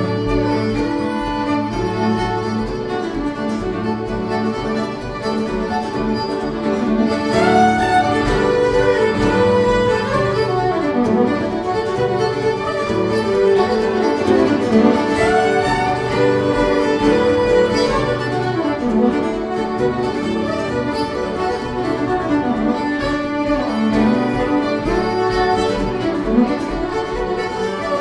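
Two fiddles playing a lively fiddle tune together over a strummed guitar accompaniment, getting a little louder about seven seconds in.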